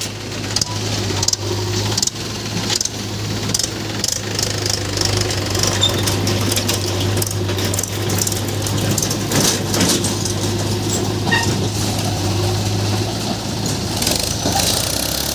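Diesel engine running steadily with a low hum, with frequent short knocks and rattles over it.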